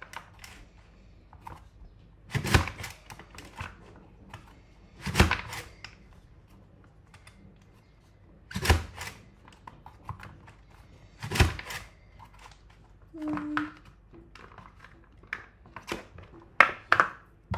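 Safe Slice mandoline pressed down through carrot on its julienne blades: a sharp thunk about every three seconds, four strong strokes with lighter knocks between them and a quick cluster of clicks near the end.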